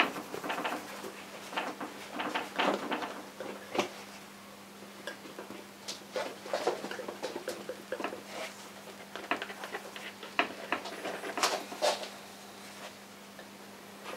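Palette knife scraping and tapping oil paint in short, irregular strokes, over a steady low hum.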